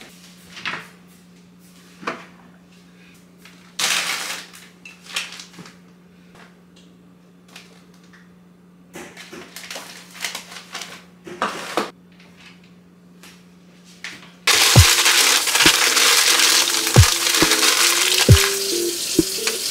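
Quiet kitchen handling sounds, a cupboard opening and small clicks and rustles over a steady low hum. About fourteen seconds in, loud continuous crinkling starts as parchment paper is pressed and crumpled into an air fryer basket.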